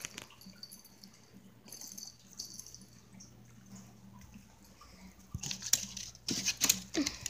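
Rustling and scratching of a hand rummaging in a fabric suitcase, faint at first, then a louder cluster of quick rustles and clicks about five and a half seconds in, with a brief squeak near the end.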